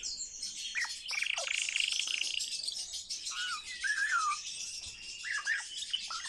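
A pet common starling singing: a continuous stream of high chatter mixed with rasping rattles, whistled glides and quick downward-sliding notes.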